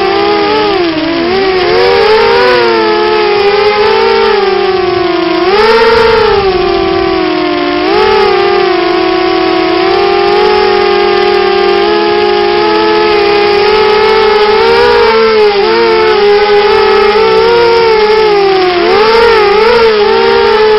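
Coptergiest CGX 250 FPV quadcopter's brushless motors and propellers whining, the pitch rising and dipping with the throttle: a sharp climb and drop about six seconds in and quick wobbles near the end.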